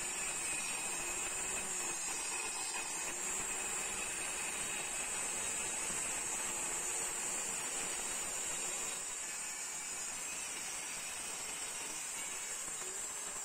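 Handheld electric circular saw running and cutting steadily along a wooden board, a continuous high-pitched motor and blade whine that dips slightly about nine seconds in.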